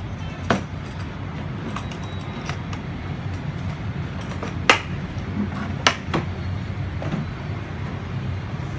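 Black plastic drill carrying case being handled and shut: a few sharp clicks and knocks, the loudest two about five and six seconds in, over a steady low background rumble.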